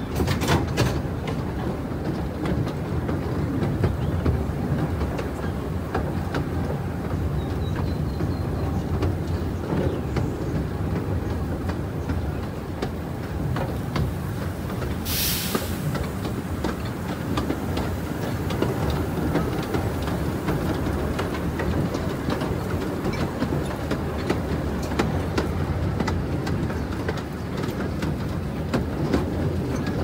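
Taipingshan forest railway's small narrow-gauge train running along the track: a steady low rumble with frequent clicking of the wheels over the rails, and a brief hiss about halfway through.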